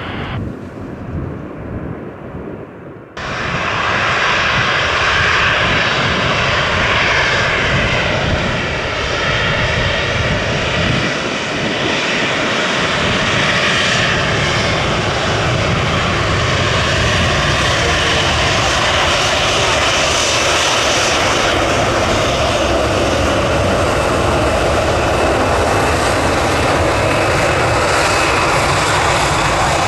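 Jet airliner engines running loud and steady, after an abrupt jump in level about three seconds in.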